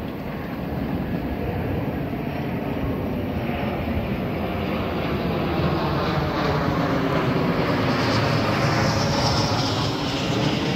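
Long Island Rail Road electric train approaching, its rumble growing steadily louder, with a high whine coming in about eight seconds in.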